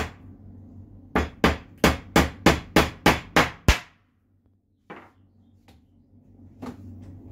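Hammer driving a nail into a wooden frame by hand: one blow, then a quick run of about nine blows, roughly three a second, stopping after about four seconds. A few lighter knocks follow.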